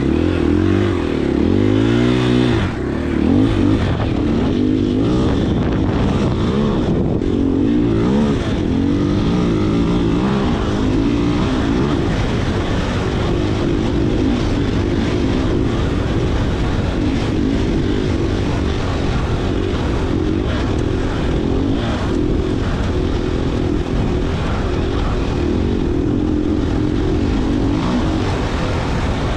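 Dirt bike engine running while the bike is ridden, revving up and down for the first dozen seconds or so, then pulling at a steadier pitch.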